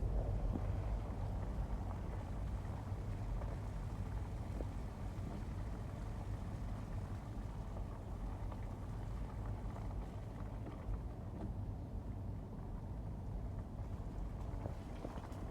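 Wind buffeting the microphone outdoors: a steady low rumble with no clear tones, slightly stronger at the start.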